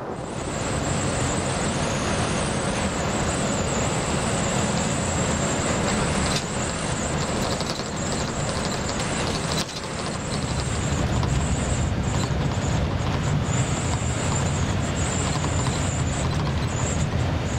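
Bus engine and road noise heard from inside the cabin while driving: a steady running rumble with a high hiss on top, dipping briefly about ten seconds in.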